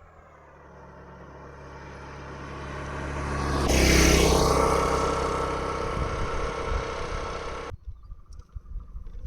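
A motor vehicle engine grows steadily louder as it approaches, then passes close by with a loud rush about four seconds in. The sound cuts off abruptly near the end, and faint rustling follows.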